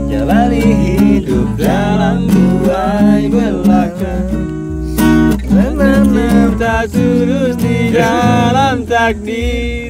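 Acoustic guitar music with a singing voice: strummed chords over a steady bass line and a sung melody.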